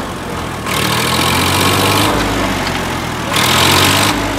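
Heavy diesel engine running steadily. A louder rushing noise joins it twice: for over a second starting just under a second in, and again briefly near the end.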